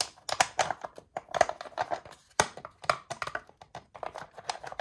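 Plastic timing-belt cover being offered up to the engine by hand, with a quick run of light clicks and rattles as it knocks and slides against the engine's metal.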